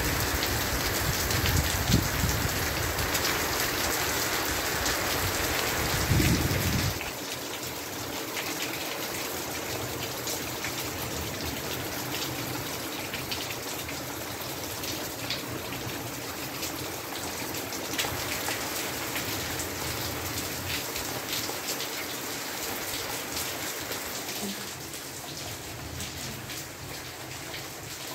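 Steady rain falling, with many individual drops ticking over a constant hiss. A deep low rumble runs under it for the first several seconds and stops suddenly about seven seconds in, leaving the rain a little quieter.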